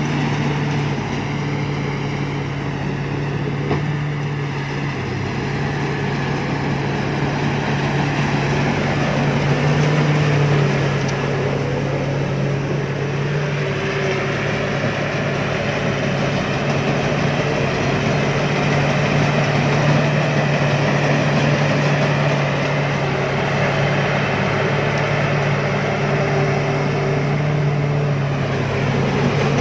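2014 Woraphot Karnchang rice combine harvester running steadily: a constant engine hum under the even clatter of its machinery.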